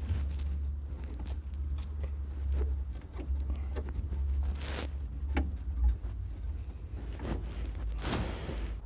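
Handling noise from working a worn rubber anti-roll-bar bushing off the stabilizer bar: scattered clicks and knocks and two short rustling scrapes, over a steady low hum.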